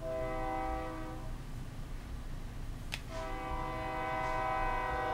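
Train horn sounding twice, a chord of several steady tones: a short blast of just over a second, then a long blast starting about three seconds in that is still sounding at the end.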